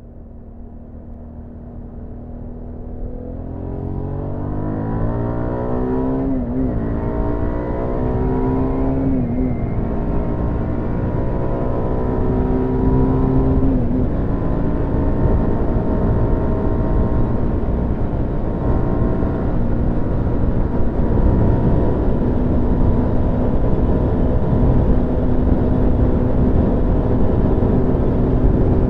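Hyosung GT650R's V-twin engine pulling away and accelerating. Its pitch climbs, then drops back at each gear change, about six, nine and fourteen seconds in. After that it runs steadily at cruising speed, with wind noise, heard through in-ear binaural microphones.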